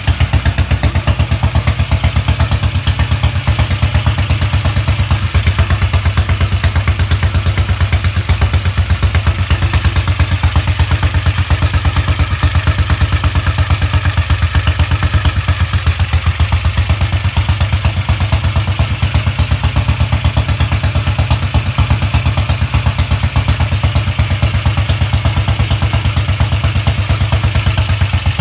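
BSA Gold Star 500's single-cylinder four-stroke engine idling steadily, with evenly spaced firing beats and some mechanical clatter, on its first run after restoration.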